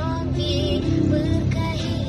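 A woman sings a melismatic vocal line whose pitch bends and wavers in ornaments, over steady instrumental backing.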